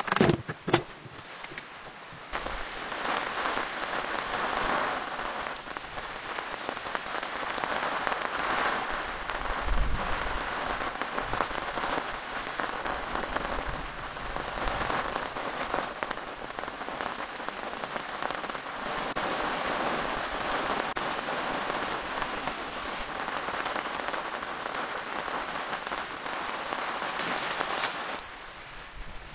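Heavy rain falling steadily, starting after a few sharp knocks in the first second and dropping away near the end.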